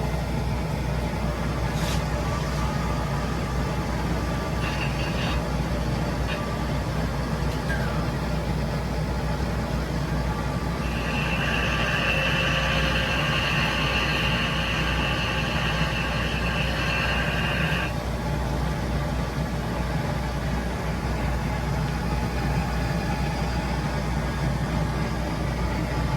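Monarch metal lathe running steadily with an even motor hum. From about eleven seconds in, a high steady whine joins it for about seven seconds, then stops.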